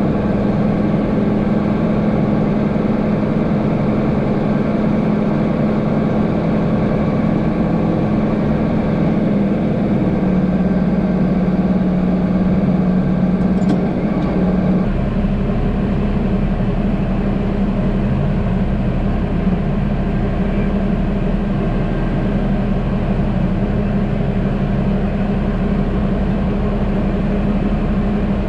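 John Deere tractor's six-cylinder diesel engine running at a steady speed, heard from inside the cab. About halfway through the sound shifts and a deeper low rumble joins in.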